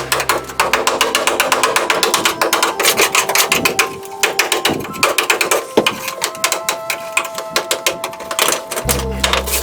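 Background music with a fast ticking beat and held synth notes; the bass drops out just after the start and comes back near the end.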